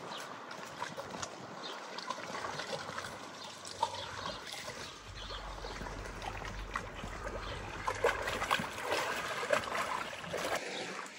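Water trickling and lapping with many small drips and splashes, getting busier and louder after about eight seconds.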